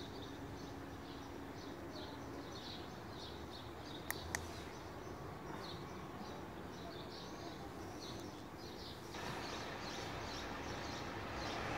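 Outdoor ambience with small birds chirping over and over. Two sharp clicks come about four seconds in, a quarter second apart, and from about nine seconds in a rush of road traffic grows louder.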